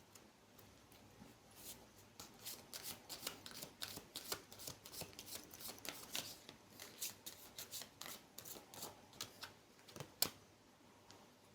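Deck of tarot cards being shuffled by hand: a faint, rapid run of papery clicks lasting several seconds, ending with one sharper tap about ten seconds in.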